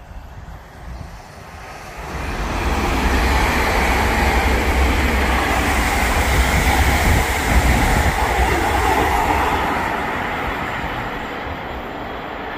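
Electric multiple-unit passenger train passing at speed: a rush of wheel and air noise that swells about two seconds in, stays loud through the middle and fades as the train draws away.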